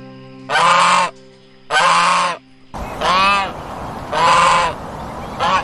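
Waterfowl calling: four loud, nasal honks, each about half a second long, spaced roughly a second apart, over a faint steady tone that gives way to background noise midway.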